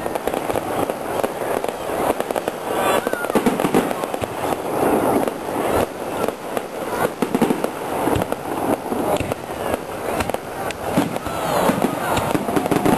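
Fireworks display: aerial shells bursting in a dense, continuous run of bangs and crackles.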